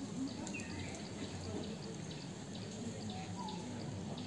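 Distant chatter of a crowd of people, with small birds chirping repeatedly over it.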